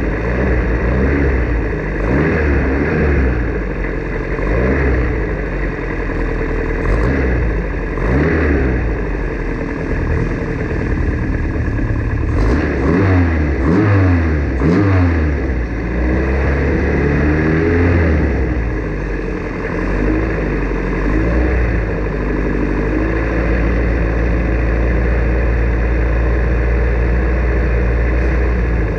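Formula Ford racing car engine running hard, its pitch climbing and falling back again and again through gear changes. Near the end it holds a steadier pitch.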